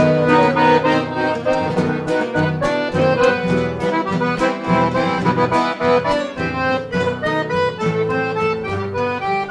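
Instrumental break of a folk song: an accordion plays the melody in held notes over a pulsing guitar accompaniment.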